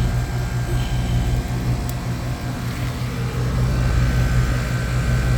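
Air-conditioning condensing unit running, a steady low hum.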